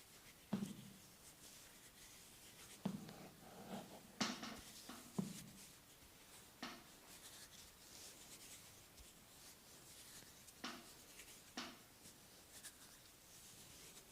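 Faint hand-massage sounds: rubbing on skin and hair with a few soft taps and pats spread through, about seven in all.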